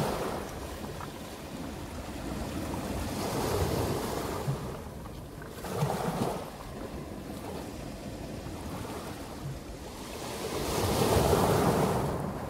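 Small Black Sea waves breaking and washing over a pebble beach. The surf swells three times, loudest about eleven seconds in.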